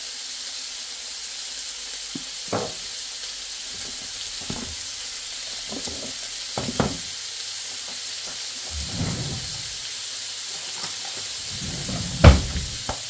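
Minced beef and carrot sizzling in hot oil in a frying pan while being stirred, a steady hiss with a few knocks of the utensil against the pan, the loudest about a second before the end.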